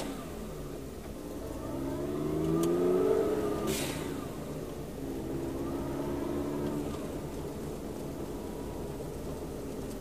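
Car engine heard from inside the car: its pitch rises for a couple of seconds, breaks off, then rises again before settling into steady running with road noise. There is a short click about four seconds in.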